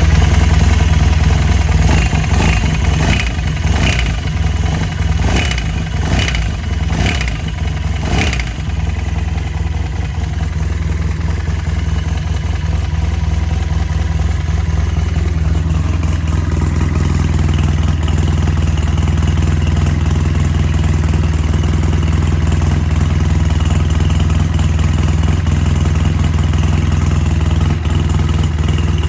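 Polaris RZR 800's twin-cylinder engine running, blipped with the throttle about seven times in the first eight seconds, each blip bringing a short harsh burst of noise, then settling to a steady idle. The burst on throttle is the unexplained noise the owner is asking about.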